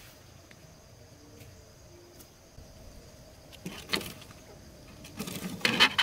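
A quail caught in a plastic-bottle pit trap, flapping and scuffling against the plastic in sharp bursts, once about four seconds in and again more loudly near the end. Faint insects hum steadily underneath.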